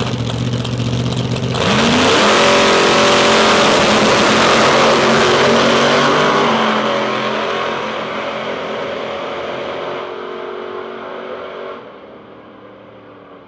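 Two drag racing cars, one of them a funny car, idling on the start line, then launching at full throttle about a second and a half in with the engine pitch climbing. The engines then fade steadily as the cars run away down the strip.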